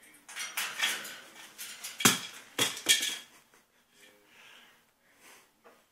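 Blue-and-gold macaw playing on top of its metal wire cage: a run of clattering knocks and rattles, loudest about two and three seconds in, then a few fainter taps.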